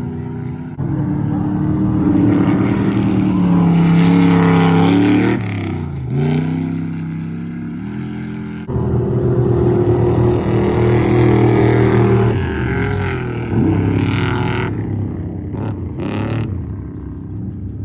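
Off-road race truck engines revving hard as the vehicles go by one after another, the engine note dipping and climbing back twice.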